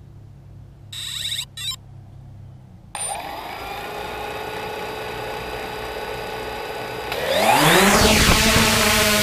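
3DR Solo quadcopter starting up: two short beeps, then about three seconds in its motors start spinning at a steady idle with several stacked tones. Near the end the motors spin up, rising in pitch and getting louder.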